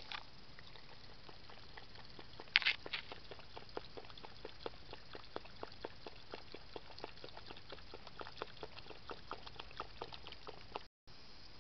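Raccoon dog eating at a feeding station: a louder crunch about two and a half seconds in, then steady chewing and smacking, short clicks about three a second.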